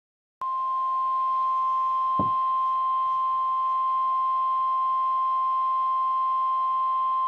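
NOAA Weather Radio 1050 Hz warning alarm tone: a single steady high-pitched tone that starts just after the beginning and holds unbroken over a faint hiss, with a short falling blip about two seconds in. The tone signals that a warning message is about to be broadcast.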